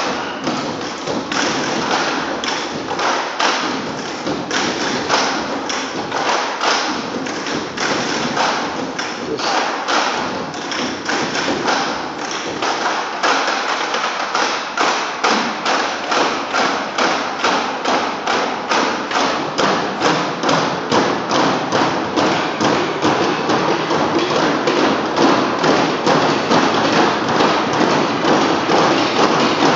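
A group of broomsticks knocked on a wooden stage floor in unison, making a steady rhythmic beat of thuds and taps, about two to three strikes a second in the latter part.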